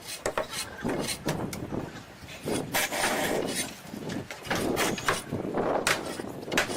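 Irregular knocks and scraping noises of wood being worked, as in log construction.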